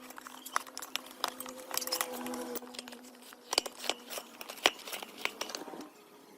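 Irregular sharp clicks and knocks with some crinkling, as of objects being handled, over a steady hum that stops about two and a half seconds in.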